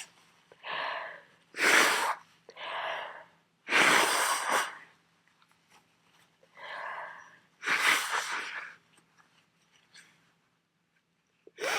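A person with a head cold sneezing three times in a fit, each sneeze led by a catching 'ah' intake of breath. Two sneezes come about two seconds apart, then a third about four seconds later.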